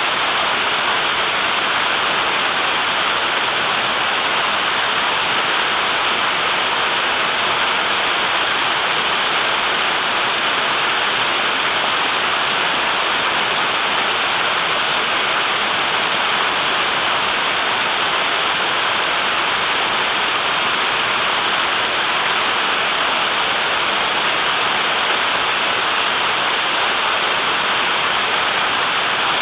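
Small river waterfall, water pouring heavily and steadily without a break.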